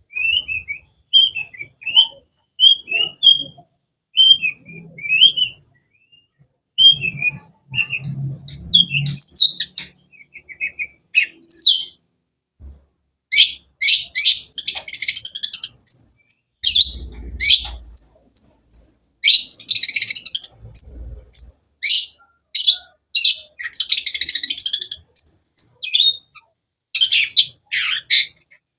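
Long-tailed shrike (cendet) singing. It starts with a run of short, down-slurred chirps about twice a second, then after a brief pause breaks into a fast, varied stream of sharp, high notes.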